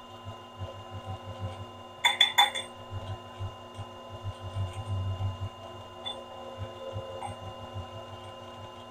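A faint steady machine hum with soft irregular low knocks, and a quick run of sharp metallic clicks about two seconds in as the Cincinnati Toolmaster 1B knee mill's head is handled.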